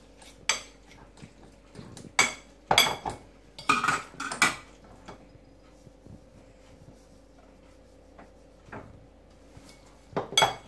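Metal fork clinking and scraping against a ceramic bowl while mixing a burger mixture, in a cluster of sharp clinks a couple of seconds in and one more near the end.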